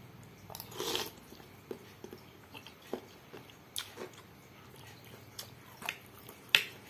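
Close-up mouth sounds of someone eating noodle soup: a short slurp about a second in, then chewing. A metal spoon clicks sharply against a glass bowl a few times, loudest near the end.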